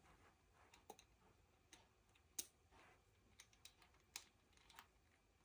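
Faint, irregular small clicks of a steel pick working inside a pin chamber of a Eurospec MPX6 euro cylinder lock, nudging a stuck pin loose. About seven clicks, spaced unevenly, the sharpest about two and a half seconds in.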